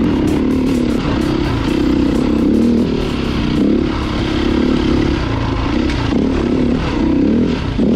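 Dirt bike engine running under changing throttle, its note repeatedly rising and falling, with scattered clicks and clatter.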